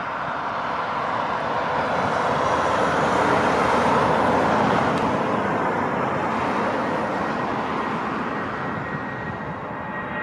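Boeing 757-200 freighter's twin jet engines at takeoff thrust as it lifts off and climbs away: a steady jet roar that swells over the first few seconds, then slowly fades.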